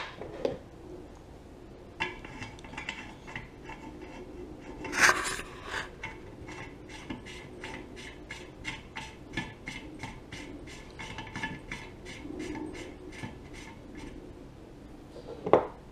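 Small metal clicks at about four a second as a steel rod end with a jam nut is turned by hand onto the threaded end of a fabricated steel lower control arm, with a louder metal clank about five seconds in and another near the end.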